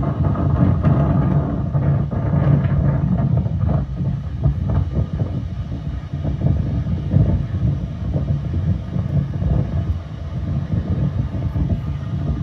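Steady low rumbling noise with scattered crackles: the played-back soundtrack of the bird-and-shark footage, heard through a computer speaker.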